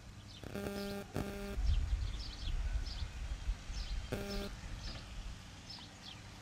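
Small birds chirping over and over in the background. Three short squeaky tones cut through, about half a second, a second and a quarter, and four seconds in, with some low handling rumble near the start.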